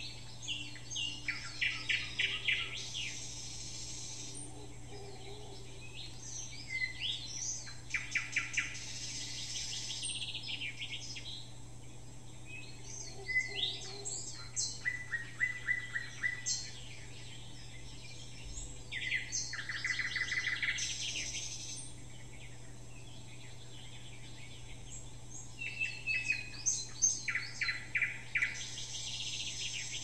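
Songbirds singing: bursts of quick trills and chirping phrases that come every few seconds, with short pauses between them.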